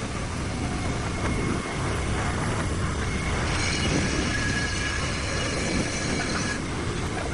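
Steady, loud machinery noise with thin high whining tones; the high hiss and whine grow stronger from about three and a half seconds in and drop back near the end.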